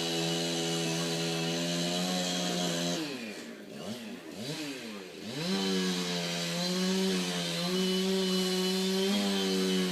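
Chainsaw running at high revs while cutting; about three seconds in the engine pitch drops and wavers, then climbs back up to full speed about five seconds in and holds steady.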